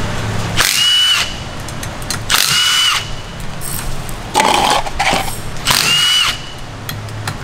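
Power drill running bolts out of a torque converter housing in short trigger bursts, four in a row, each a whirring whine that winds down as the trigger is released.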